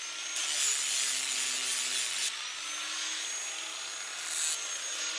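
Electric angle grinder running with a steady whine as it sharpens the edge of a steel rotary mower blade clamped on a workbench. The grinding hiss is strongest in the first two seconds and swells again briefly near the end.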